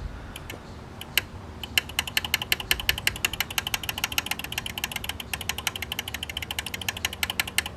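Welder relay contact being worked back and forth by hand: small metal clicks, a few scattered at first, then a steady fast clicking from about two seconds in, to loosen the corroded contact tab.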